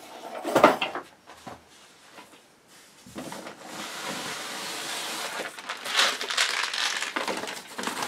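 Crumpled packing paper rustling and crinkling as a wrapped package is dug out of a cardboard box and pulled free, after a brief knock of handling noise about half a second in.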